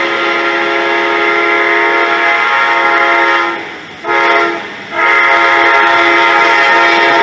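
Amtrak GE Genesis passenger locomotive's multi-chime air horn blowing the grade-crossing signal: a long blast ends, a short blast follows, then the final long blast begins and holds.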